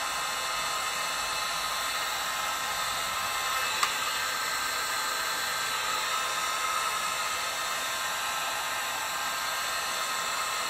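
Electric heat gun running steadily, blowing hot air to shrink a shrink-wrap grip sizer down onto a racquetball racquet handle.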